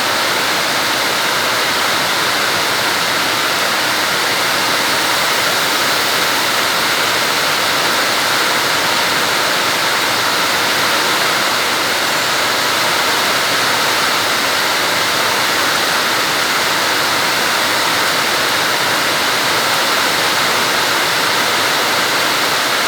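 Heavy rain pouring with water running over a flooded road: a loud, steady hiss that holds even throughout, with no separate splashes or other sounds standing out.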